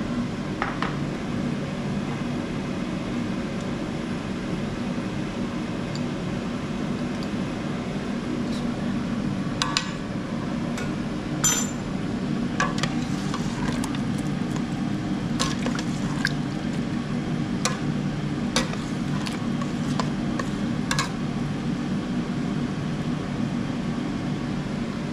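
A steel ladle clinking and scraping against the stainless inner pot of an electric pressure cooker as a curry is stirred, a scatter of sharp clinks through the middle of the stretch, over a steady low hum.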